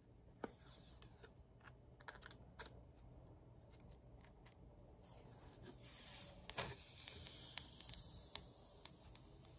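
Faint small clicks and taps of hands handling a plastic phone screen protector and its packaging, with a soft rustling from about halfway in.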